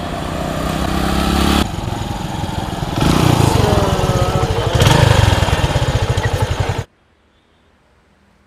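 Small motorcycle engine running as the bike rides uphill carrying a rider and passenger, its pitch rising and falling, heard across several abrupt edits; the sound cuts off suddenly near the end.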